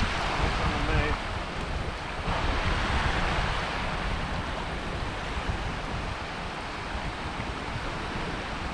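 Small waves breaking and washing up a shallow sandy beach, with wind buffeting the microphone in a low rumble.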